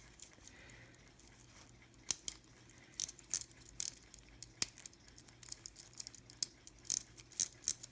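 Small sharp metallic clicks and taps as a pocket watch's stem and crown are reinstalled and handled. The clicks are irregular, starting about two seconds in and coming more often toward the end.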